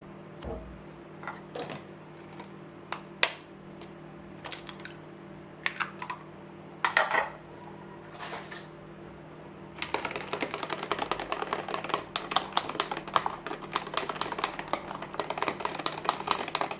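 Scattered knocks and clinks of kitchenware while an egg is got ready. Then, from about ten seconds in, a fork beating egg in a bowl: fast, steady clicking against the bowl.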